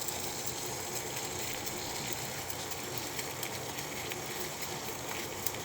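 Cinnamon and bay leaf pieces sizzling steadily in a hot pan as they roast, with occasional crackles.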